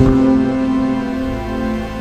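Instrumental background music: a new chord sounds right at the start and is held, ringing on.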